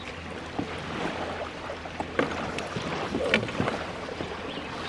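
Wind and small waves lapping at a lakeshore, with a few sharp knocks and clatters as fishing gear is handled in a plastic kayak, most of them in the second half.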